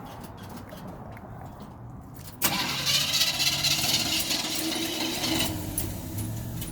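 1979 GMC truck's engine being cranked and firing about two and a half seconds in, then running, in the middle of a hard-starting problem that the owner puts down to the carburetor.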